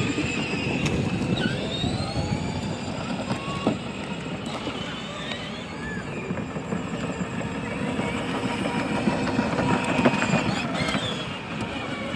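A vehicle being driven along under throttle, a steady running noise without a break.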